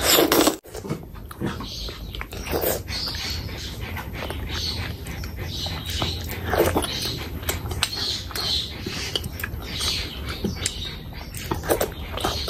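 Close-miked eating: a loud bite and slurp at the start as a fingerful of fish curry goes into the mouth, then steady wet chewing and lip smacking.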